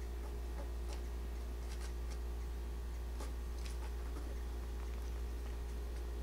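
Scattered small clicks and taps as a squirrel takes a peanut from fingers on a wooden table and handles it, over a steady low hum that is the loudest sound.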